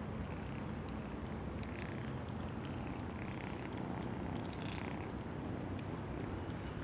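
Tabby kitten purring steadily close up.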